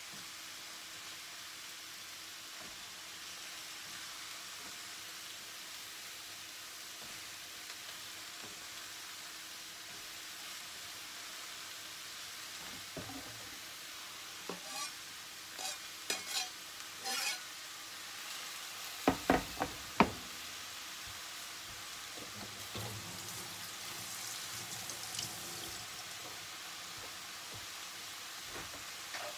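Sliced mushrooms sizzling quietly in a frying pan, a steady hiss. About halfway through come a few clicks and then three sharp knocks, the loudest sounds, as a plastic cutting board is tipped over the pan and knocked against it.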